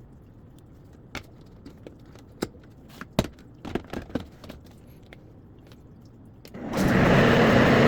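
A few light clicks and knocks, then about six and a half seconds in the NutriBullet 1200's motor starts and runs loudly with a steady whine: the blender working again after its motor base was cleaned of grime and spilled liquid.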